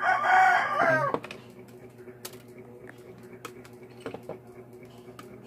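A rooster crows once in about the first second, ending in a falling glide. After it comes a low steady electrical hum, with a few light clicks as the amplifier board is handled.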